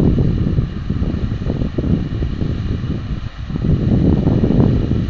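Wind buffeting the microphone: a loud, gusty low rumble that rises and falls, easing briefly about three seconds in.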